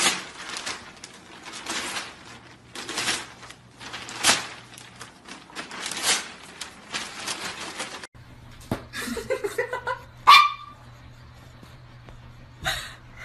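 Newspaper rustling and crackling as a golden retriever grabs and pulls at the pages with its mouth. After a sudden break, a small dog makes a few short whines and one sharp bark about ten seconds in.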